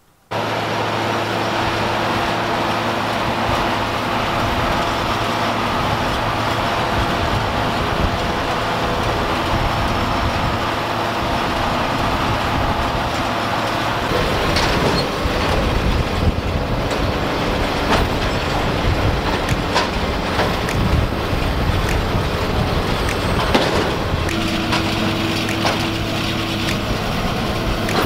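John Deere tractor pulling a round baler: the engine runs at a steady drone while the baler works, with irregular clatter and knocking that grows busier from about halfway through.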